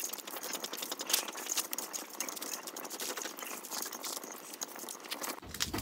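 Wood fire crackling and popping while a chicken's feathers and skin are singed over the open flames. A low rumble comes in near the end.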